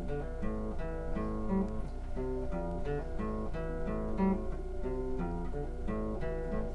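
Classical acoustic guitar played alone in a steady, repeating chord pattern.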